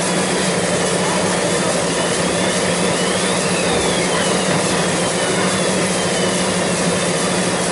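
Cardboard printing machine running with a steady hum over even mechanical noise, with faint high whines that rise and fall.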